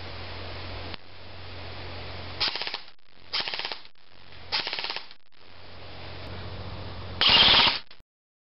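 Homemade airsoft gun firing four short full-auto bursts of rapid clicks, the last one the longest and loudest, over a steady low hum.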